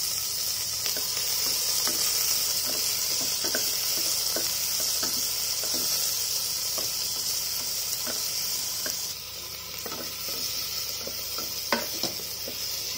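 Chopped onions and cumin seeds sizzling in mustard oil in a pressure cooker, stirred with a spatula that scrapes and taps against the metal pot. The sizzle eases slightly about nine seconds in, and there is one sharper knock near the end.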